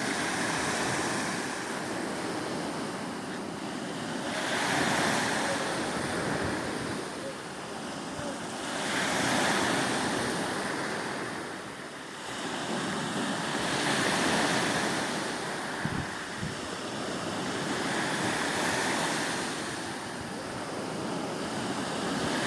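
Sea waves washing onto the shore, each surge rising and falling about every four to five seconds, with some wind buffeting the microphone.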